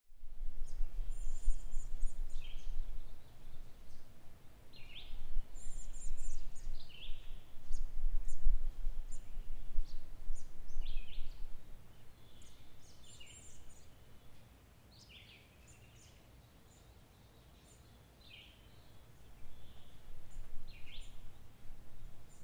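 Birds singing outdoors, short chirped phrases repeating every second or two. Under them runs a low rumble that swells and fades and dies away for a few seconds in the middle.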